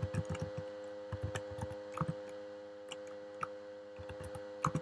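Computer keyboard keys clicking in irregular bursts, dense for the first couple of seconds and then sparse, with a pair of clicks near the end, over a steady electrical hum.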